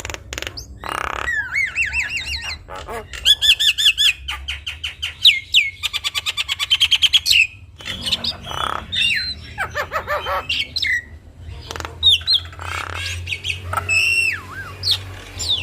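Javan myna singing a long, varied song of slurred whistles, fast runs of repeated chips, and harsh rasping squawks in between.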